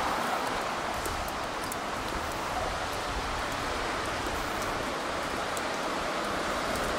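Steady city street ambience: an even, unbroken wash of traffic noise with no distinct passing vehicle.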